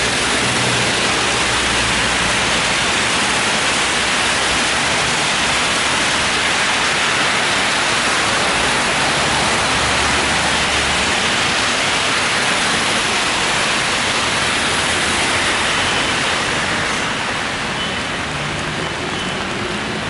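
Steady hiss of falling rain mixed with the low rumble and tyre swish of traffic on a wet road. The hiss eases slightly about 17 seconds in.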